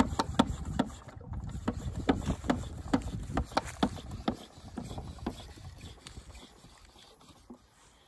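Hand pump on a 10-litre pressurised water container being worked to build pressure: a run of pumping strokes and clicks, about two a second, that dies away about six seconds in.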